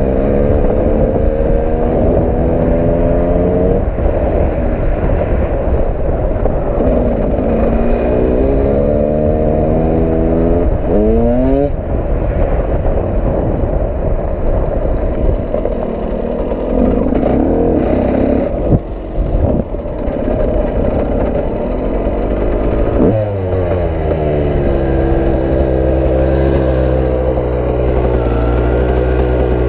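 KTM EXC two-stroke dirt bike engine being ridden hard, its pitch repeatedly climbing and falling as the throttle opens and closes through the gears. About 23 seconds in the revs drop sharply and the engine settles to a steady, even note.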